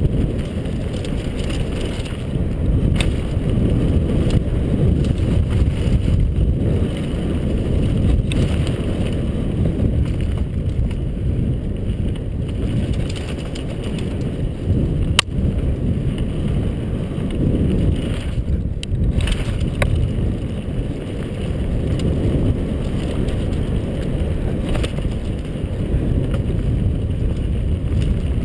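Downhill mountain bike running fast over a dirt trail, heard as a steady, heavy wind rumble on a helmet-mounted camera's microphone together with tyre and frame rattle. A few sharp clicks from the bike come through, the clearest about halfway through.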